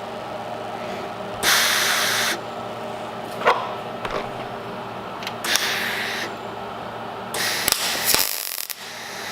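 Welder laying short tack welds on the car's steel rear guard: three hissing bursts of about a second each, with a sharp click between the first two, over a steady hum. The panel is thin enough that the welds are blowing holes in it.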